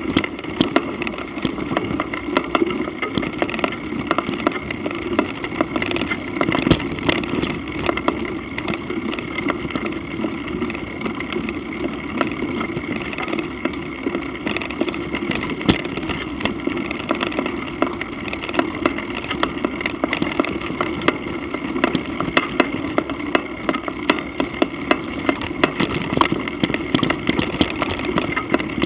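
Movement noise of an action camera carried across rough grass: a steady rumble and hiss with frequent sharp clicks and knocks.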